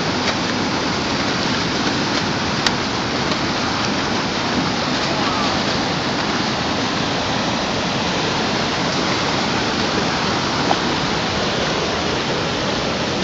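Fast river water rushing over a bedrock slab, a steady, unbroken rush with a few faint clicks.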